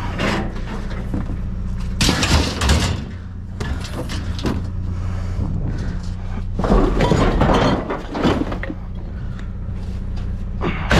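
Junk being rummaged through and moved around in a dumpster: irregular clattering and rattling, loudest about two seconds in and again around seven to eight seconds, over a steady low hum.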